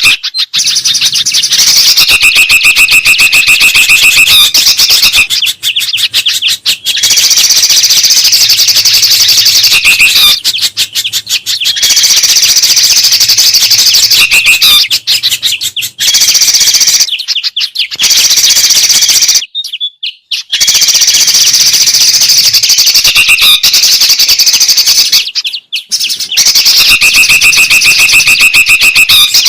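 Bird-lure recording of songbirds, bulbuls and spiderhunters, calling loudly in rapid, busy chirps and trills, broken by a few short pauses.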